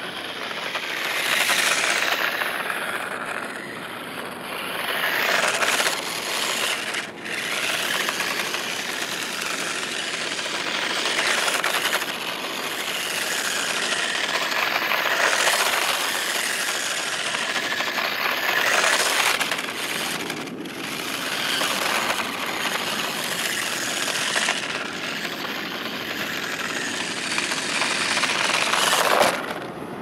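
New Bright radio-controlled toy Corvette Z06 driving over rough asphalt: a gritty rattling noise from its hard plastic wheels on the pavement, swelling and fading as the car passes close again and again, loudest just before the end.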